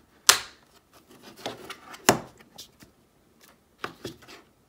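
Flathead screwdriver prying at the seam of a glued plastic power-bank case: scraping and rubbing, with two sharp loud cracks, about a third of a second in and about two seconds in, and a few smaller clicks near the end.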